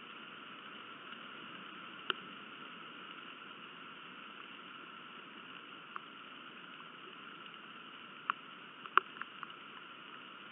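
Steady hiss of rain picked up by a nest-camera microphone, with a handful of sharp ticks, the loudest about nine seconds in.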